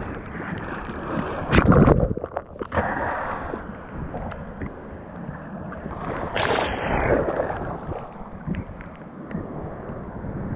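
Seawater splashing and sloshing around a waterproof action camera held in the surf, with wind buffeting the microphone. A loud splash comes about a second and a half in, and another rush of water around six seconds in.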